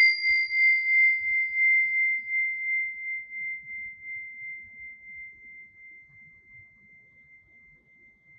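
Tingsha hand cymbals ringing out after a single strike: one clear high tone that wavers gently and slowly fades, almost gone near the end, with a fainter higher overtone dying away in the first few seconds. Rung as a space-purifying chime.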